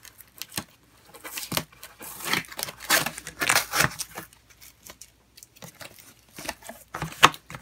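Packing tape being peeled and torn off a corrugated cardboard shipping box, with the cardboard flaps scraping and rustling in irregular bursts and a few sharp clicks.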